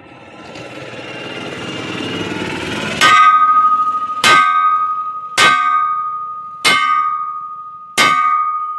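A rushing sound swells for about three seconds, then five evenly spaced, ringing metallic strikes follow about a second apart. This is a hammer striking a steel truck wheel rim during tyre work, the rim ringing on between blows.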